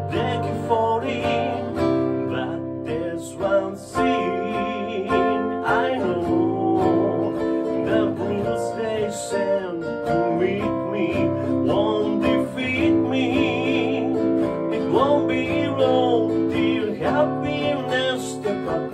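A man singing while playing chords on a Headway nylon-string electric-acoustic guitar.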